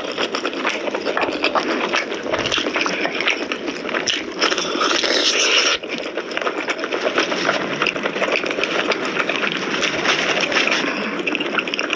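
Close-miked eating of spicy mutton nalli curry: wet chewing and lip-smacking that come as a dense run of quick clicks.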